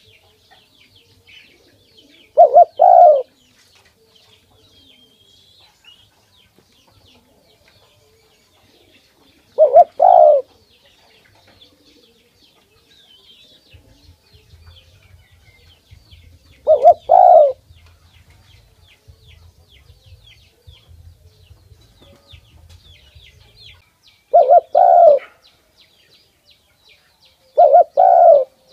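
Spotted dove cooing: five short two-note coos, spaced several seconds apart.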